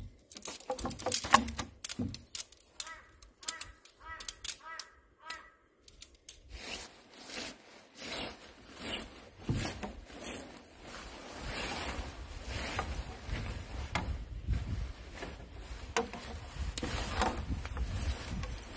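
Handling noises: a quick run of sharp clicks and knocks with a brief repeated high-pitched pattern in the middle, then a steady rustling scattered with clicks.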